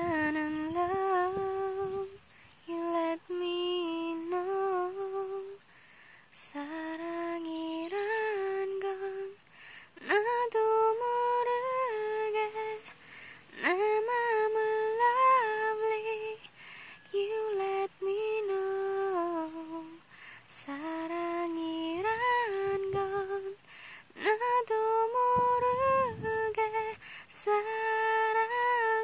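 A woman humming a slow, wordless melody on her own, in phrases of two or three seconds with short breaks between. Three sharp clicks fall in the middle and near the end.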